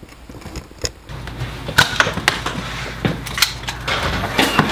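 Scattered sharp clicks and snaps of foam-dart Nerf blasters firing, several spread irregularly over the last few seconds, over a low steady hum that starts about a second in.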